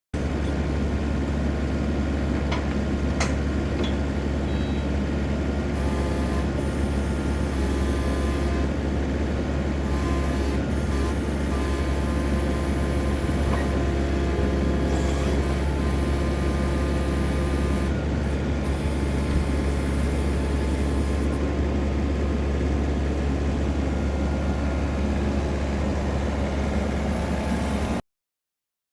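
Diesel engine of a compact excavation machine running steadily with a deep hum, with a few light clanks a few seconds in.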